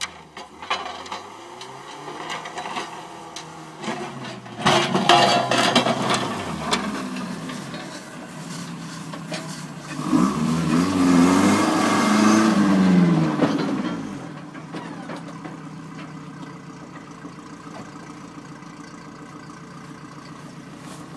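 Truck engines working in snow: an engine revs up and down near the start, with a loud noisy stretch about five seconds in. About ten seconds in an SUV drives close past, its engine revving up and down for about four seconds, and then a steady, quieter engine drone remains.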